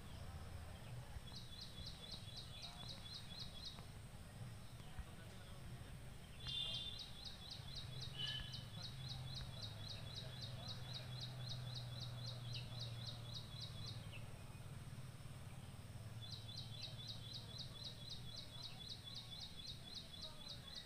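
Outdoor ambience with an unseen small animal's high, rhythmic chirping, about four chirps a second. The chirping comes in three long runs over a low steady hum and a faint, steady high whine.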